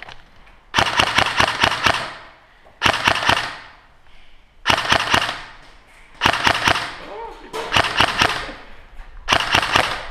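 Airsoft rifle firing six bursts of rapid full-auto shots, each burst about a second long with short pauses between them.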